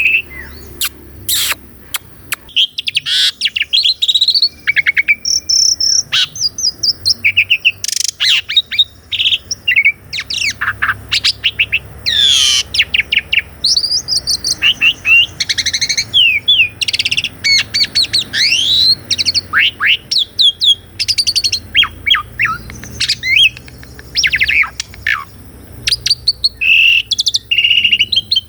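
Asian pied starling (jalak suren) singing a long, varied song of rising and falling whistles, quick chirps and sharp clicking notes, with hardly a pause.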